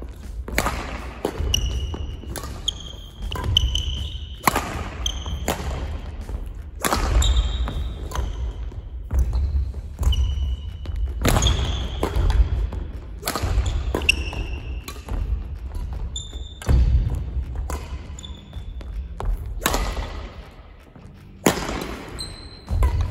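Badminton singles rally: sharp racket strikes on the shuttlecock about once a second, with short high shoe squeaks on the court floor and thudding footfalls between shots.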